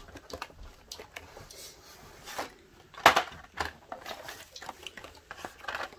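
Blister-packed Hot Wheels cars being pulled out of a cardboard case tray and handled: plastic blister packs and card backs clattering and rubbing in irregular clicks, with one sharper clack about three seconds in.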